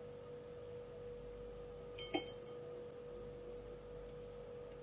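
A metal fork clinks twice against a glass plate about two seconds in, over a faint steady hum.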